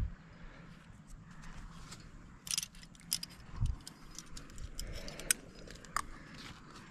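Metal climbing rack jingling: carabiners, cams and nuts on a harness clinking against each other in short, irregular clicks as the climber moves.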